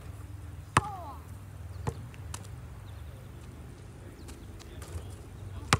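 Basketball bouncing on an asphalt driveway: a sharp bang about a second in, then two smaller bounces, and another sharp hit near the end after the next shot. A steady low hum runs underneath.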